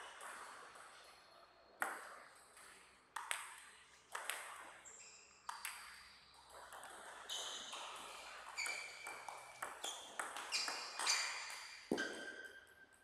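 Table tennis ball striking the table and rubber bats: a string of sharp, irregular pings, each with a short ringing tail. The hits come closer together about ten to twelve seconds in.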